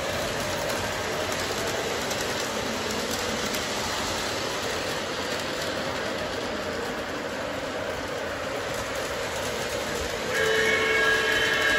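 Lionel O-gauge model trains running on the layout's track, a steady rolling rumble and clatter of wheels. About ten seconds in, a locomotive's electronic sound system begins blowing its horn, a chord of several steady tones.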